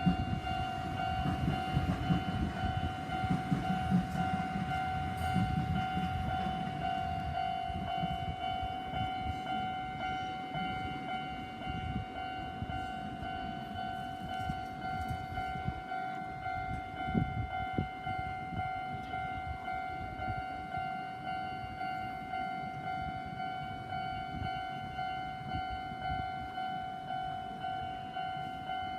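Japanese level crossing's electronic warning bell ringing throughout with its repeating clang, while a passing train's low rumble fades away over the first eight seconds or so.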